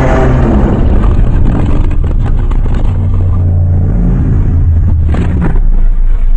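Monster sound effect: a loud, deep rumbling growl, as a roar trails off into low rumbling, with a short sharper burst about five seconds in.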